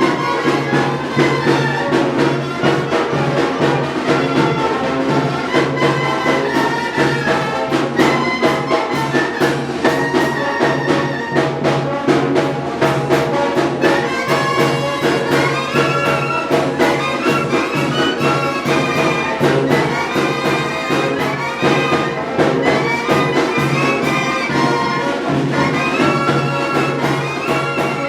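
Mexican village wind band (banda) playing: brass carries the melody over a steady drum beat.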